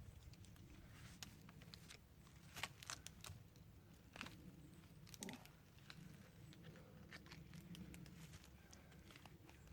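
Faint scattered crackles and rustles of hands-on work in dry woodland litter, with a few sharper cracks about a third of the way in.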